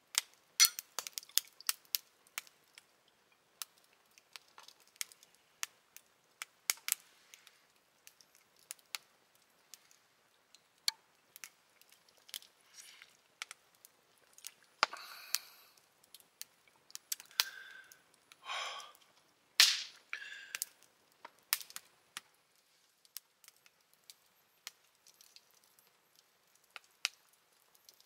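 Wood campfire crackling: irregular sharp pops and snaps, with a few longer crackles around the middle.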